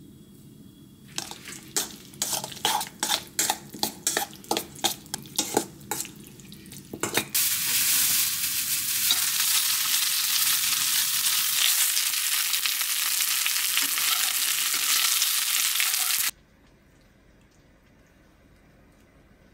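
Sauce being stirred in a stainless steel mixing bowl, a run of quick scraping strokes about two or three a second. Then chicken breast pieces frying in sesame oil in a nonstick pan, a loud steady sizzle that cuts off suddenly.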